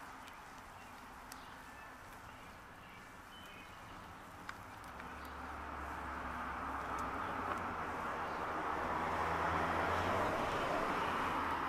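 Eggs frying in a cast iron skillet over a wood fire: a steady sizzling hiss that grows louder over the second half, with a couple of faint crackles. Faint birdsong in the first few seconds.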